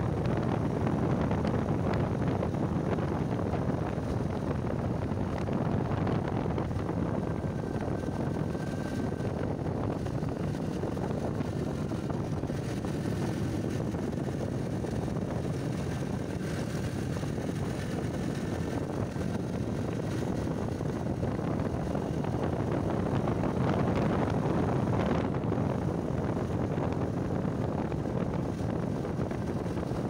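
Steady wind and road noise from a ride in an open vehicle, with wind rushing over the microphone.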